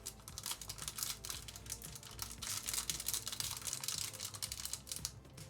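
Plastic wrapping on a sealed trading card box being crinkled and torn open by hand. A dense run of crackles, loudest in the middle, from packaging that is tightly sealed.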